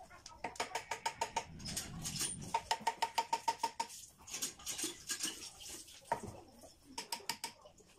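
Quick runs of light hammer taps on the metal of an electric motor's pulley end, about six or seven a second, each with a short metallic ring, broken by brief pauses.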